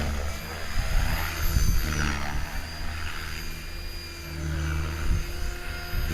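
Hurricane 425 electric RC helicopter in flight: a steady high motor whine over the whoosh of the rotor blades, swelling and fading as it manoeuvres.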